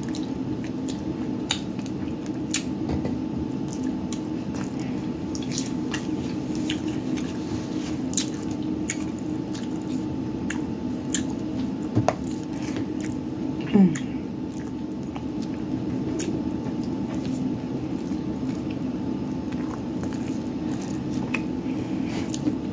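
Close-miked chewing and wet mouth sounds of a person eating a falafel taco in a soft tortilla with tzatziki, with scattered smacks and clicks over a steady low background hum.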